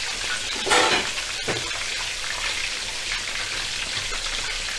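Chicken pieces deep-frying in hot oil in a wok, a steady sizzle, with a brief louder burst about a second in and a light knock shortly after.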